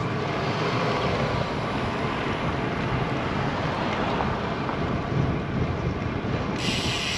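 Steady wind and road noise from riding a road bicycle. A sharper hiss comes in near the end.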